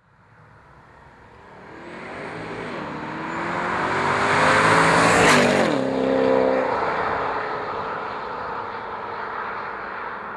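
Porsche Panamera Turbo's twin-turbo V8, through Fabspeed downpipes, an X-pipe resonator delete and stock mufflers, driving past. The exhaust note grows louder and higher as the car approaches, drops sharply in pitch as it passes about five seconds in, then fades away.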